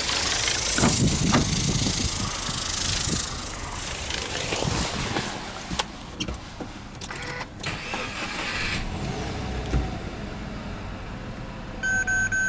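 Subaru Impreza S-GT's EJ20 turbocharged flat-four engine being cranked and started about seven seconds in, then idling. A warning chime beeps in short pulses near the end.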